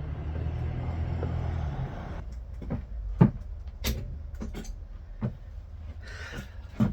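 A power driver's motor runs steadily for about two seconds and then stops, followed by a string of sharp knocks and clicks, with a brief scrape near the end.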